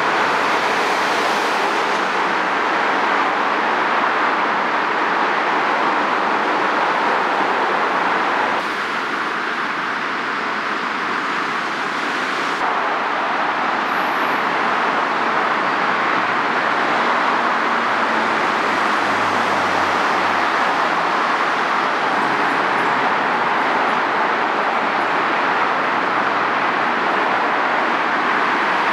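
Steady noise of heavy multi-lane road traffic, with no distinct events, dipping slightly for a few seconds about nine seconds in.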